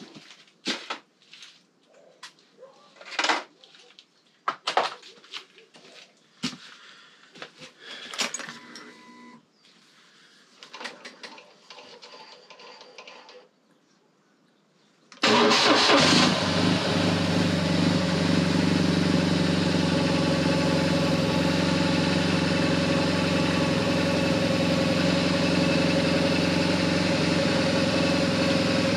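Scattered clicks and knocks of hand work on the motorcycle, then about halfway through the BMW GS boxer-twin engine comes in suddenly and idles steadily.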